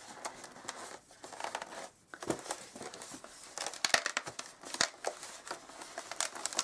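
Inflated 260 latex modelling balloons rubbing against each other and against cotton work gloves as hands squeeze and reposition them, giving irregular crinkly scrapes.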